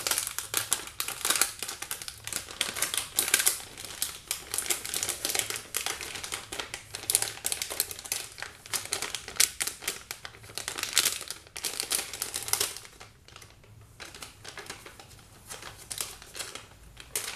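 Busy hand-handling noise: rapid crinkling and clicking of plastic and small parts while computer hardware is being readied for fitting. About 13 seconds in it thins out to a few scattered clicks.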